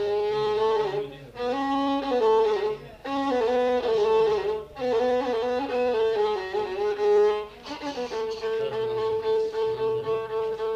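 Instrumental passage of a song, with no singing: a melody with a few short breaks, settling on one long held note about eight seconds in.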